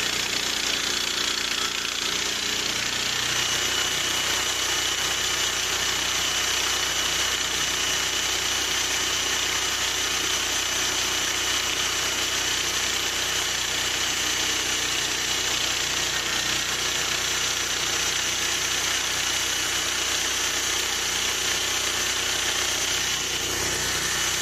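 Gas-engine bandsaw sawmill running steadily while its band blade cuts through a plum log, with a steady high whine that comes in about three seconds in.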